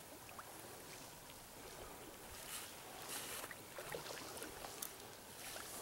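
Faint sloshing and lapping of shallow water at a lake shore around a landing net, with a few soft splashes about halfway through over a steady hiss of wind.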